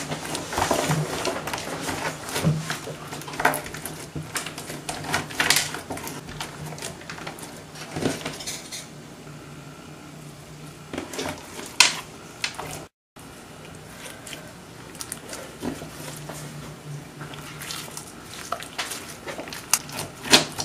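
Clear glitter slime with pearl beads mixed in, squeezed, stretched and kneaded by hand, making irregular wet clicks and crackles.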